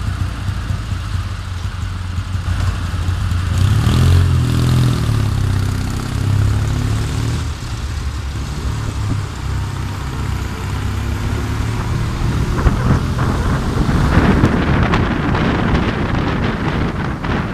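Vehicle engine running, with its pitch rising and falling as it revs up about four seconds in, while traffic pulls away. Wind noise rushes over the microphone from about fourteen seconds on as the vehicles drive along the street.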